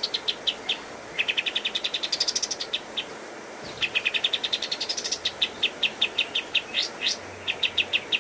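Kapas tembak bulbul singing its 'tembakan' song: rapid runs of short, sharp notes about six a second, some runs rising in pitch, broken by brief pauses.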